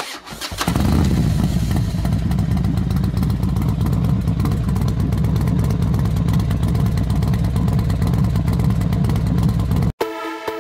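A loud, steady low rumble with a fast pulse, engine-like. It cuts off abruptly near the end, and electronic music starts.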